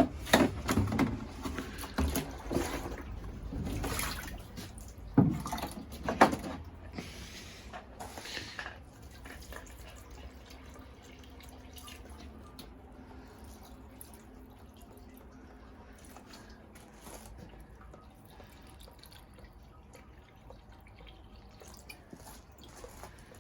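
Water running, splashing and dripping while plants are watered with liquid feed, with a few sharp knocks in the first six seconds. Afterwards the sound settles to a faint, steady trickle.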